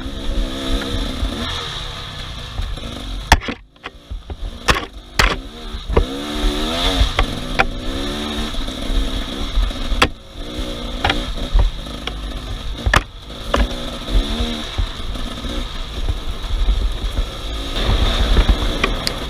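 Off-road vehicle engine revving up and down over and over, with several sharp knocks; it drops away briefly about three and a half seconds in.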